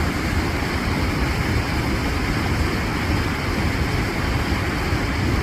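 Steady rush of fast white water from the River Tees rapids at High Force waterfall.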